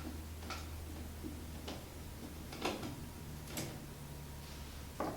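Diagonal cutters snipping off plastic tubing, a handful of sharp clicks about a second apart, over a faint steady low hum.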